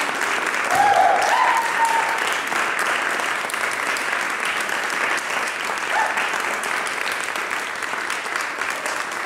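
Audience applauding, a dense steady clapping, with a brief cheer rising over it about a second in.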